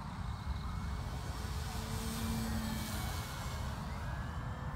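Electric motor and propeller of a radio-controlled E-flite Carbon Z Cessna 150 giving a faint whine overhead, its pitch sliding slowly as the plane moves, over a steady low rumble of wind on the microphone.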